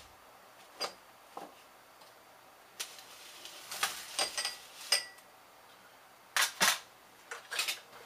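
Small desoldered chips clinking in a metal tray: a string of separate sharp clicks, some with a brief metallic ring, then two louder clacks near the end as hard objects are set down.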